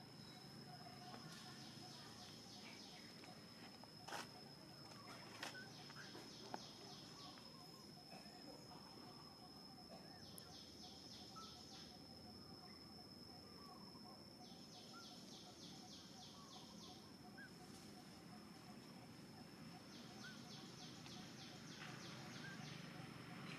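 Quiet forest ambience. A steady high insect whine runs throughout. A pulsing high trill, about six pulses a second, comes and goes five times in bursts of about two seconds. A few faint clicks are heard about four to six seconds in.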